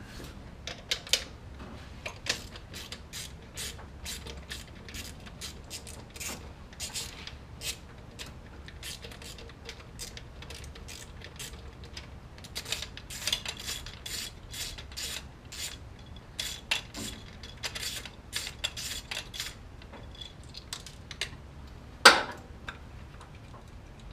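Socket ratchet clicking in short runs as it loosens the carburetor's hold-down nuts, with one sharper, louder clank near the end.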